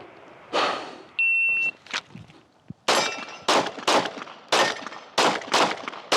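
A shot timer beeps once, and about a second later a 9mm Glock 45 pistol fires a string of about seven shots, roughly two a second, with a steel target ringing from some of the hits.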